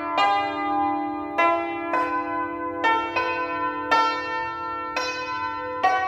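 Yangqin (Chinese hammered dulcimer) played with two bamboo mallets: single notes struck about once a second in a slow melody, each ringing on long and overlapping the next, over a low sustained note.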